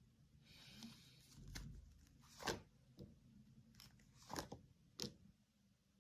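Faint handling noises: a brief soft rustle about half a second in, then five short clicks or taps over the next few seconds.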